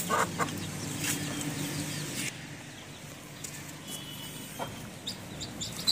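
A caged hen clucking low and faintly for the first couple of seconds, then a quieter stretch with a few soft clicks and a brief high chirp.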